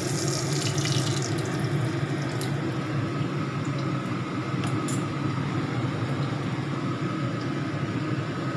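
Battered shrimp frying in hot oil: a crackling sizzle that thins out after about two and a half seconds, over a steady low hum.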